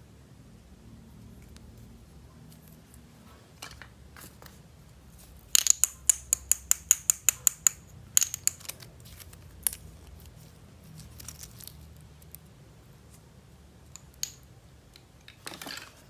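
Small plastic toy pieces and packaging being handled. About a second and a half of a quick run of sharp clicks, roughly five a second, then scattered taps and a short scraping rustle near the end.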